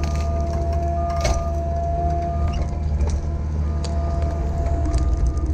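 CAT 305 mini excavator running steadily under work, its diesel engine humming with a steady hydraulic whine above it, while a few sharp cracks and knocks come from the bucket working brush, the first about a second in.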